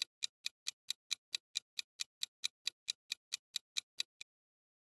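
Clock-tick countdown timer sound effect: even, sharp ticks at about four and a half a second, stopping shortly before the end.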